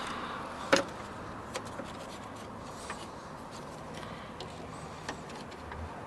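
Small parts of a car door handle assembly being handled: one sharp click about three-quarters of a second in, then a few faint ticks, over a steady background hiss.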